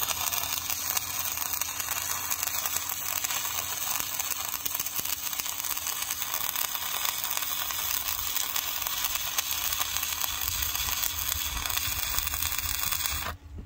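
Stick-welding arc from a 5/32-inch 7014 electrode, crackling steadily as a bead is run, then cutting off abruptly near the end as the arc is broken.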